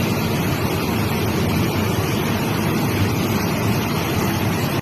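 Lahar, a rain-triggered volcanic mudflow of water, sand and rock, rushing down a river channel as a steady, loud, deep torrent noise.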